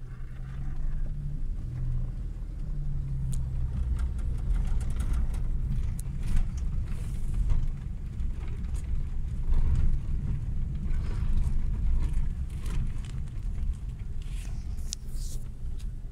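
Car driving on an unpaved dirt road, heard from inside the cabin: a steady low rumble of engine and tyres, with an engine hum in the first few seconds and scattered light clicks and rattles.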